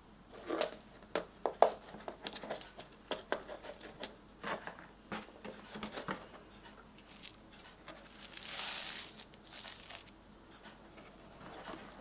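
Hands handling a handmade paper-and-cardboard mini album: a run of light taps and clicks for the first six seconds or so, then a longer paper rustle about eight seconds in.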